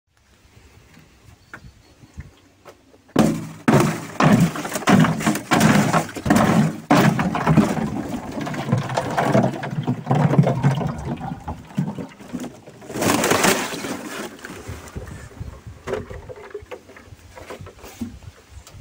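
Water gurgling, glugging and splashing as a plastic watering can is plunged into a tub of water and fills. The sound starts suddenly about three seconds in, is loud and choppy, has a brighter splash about thirteen seconds in, and tails off as the can fills.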